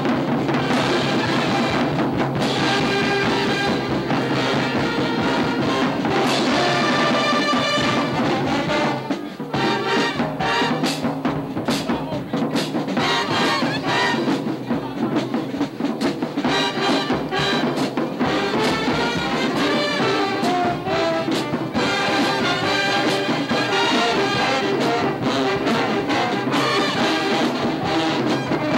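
Brass band music, trumpets and trombones carrying the tune, with drum hits.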